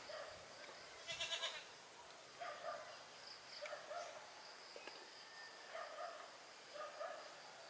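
Short animal calls repeating every second or so, the loudest a little over a second in, over a steady high-pitched insect buzz.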